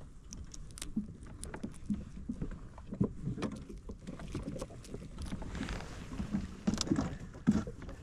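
Water lapping and knocking softly against the hull of an inflatable boat, with short sharp clicks of fishing line and hook being handled close by.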